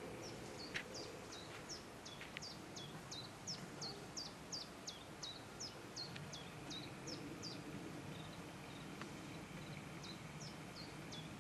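A songbird singing a long run of short, high notes, each sliding downward, a little over two a second; it pauses and then sings a few more notes near the end.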